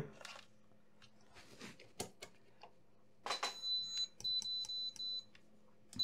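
Multimeter continuity beeper sounding in uneven on-off stretches as the probe touches a ground point on a laptop motherboard, starting about three seconds in and again near the end. The beep signals continuity: a good ground has been found. A few light clicks of probe handling come before it.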